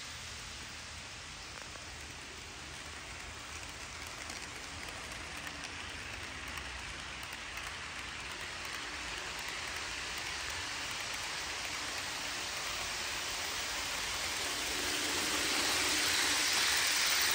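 Model trains rolling over plastic-roadbed track: a steady rushing hiss of wheels and motors. It grows louder near the end as a lit passenger train passes close by.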